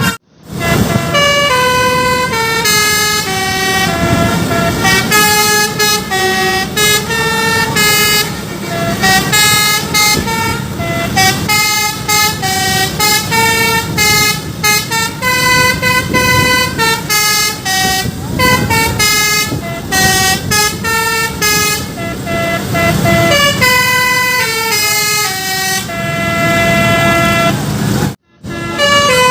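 Telolet basuri multi-tone bus horn playing a long melody of clear stepped horn notes over a low engine rumble. The tune breaks off for an instant a moment in and again near the end.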